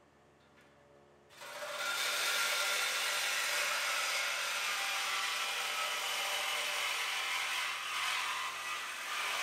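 Cordless reciprocating saw cutting through a steel exhaust pipe under a car, the cut that takes out the mid muffler for a mid-muffler delete. The saw starts about a second and a half in and runs loud and steady, easing off briefly near the end.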